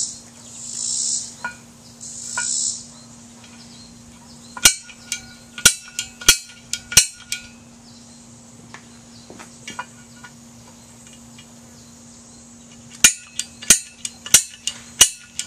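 Sharp metal clicks and taps in two clusters as a steel combination square and scribe are set against a steel pipe collar to mark out bolt holes. The pipe rings briefly after the louder taps. Over the first few seconds insects buzz in high pulses.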